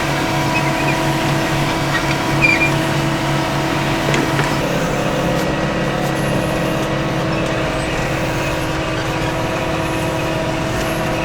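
Farm tractor's diesel engine running steadily at constant speed.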